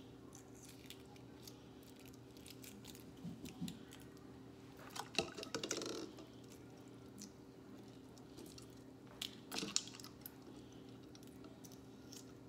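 Faint crackling and clicking of a hard-boiled egg's shell being cracked and picked off by hand, with louder bursts of crackling about five seconds in and again near ten seconds.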